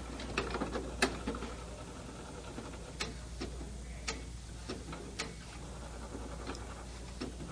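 HP DesignJet T120 wide-format inkjet printer initializing after its cover is closed, checking its rail and parking the print carriage: irregular clicks and ticks from the carriage mechanism over a low steady hum.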